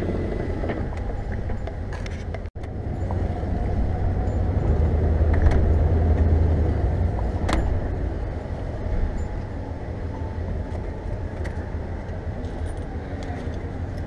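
Vehicle engine and road noise heard from inside the cabin while driving: a steady low rumble that swells for a few seconds midway, with a few light clicks and jingles. Near the start it drops out for an instant.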